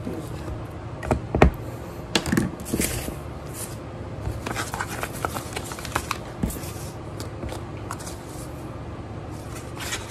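Hands handling a small art card and a piece of brown paper on a wooden desk: paper rustling and sliding, with scattered clicks and knocks as things are picked up and set down, the loudest knock about a second and a half in.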